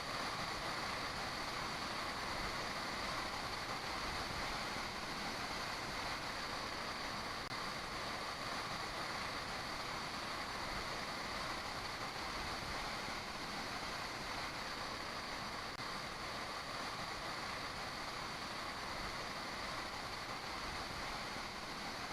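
Waterfall (Jōren Falls) pouring into its plunge pool: a steady, unbroken rush of water.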